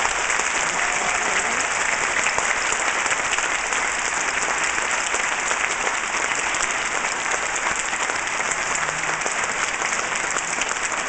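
Theatre audience applauding: dense, steady clapping from a large crowd.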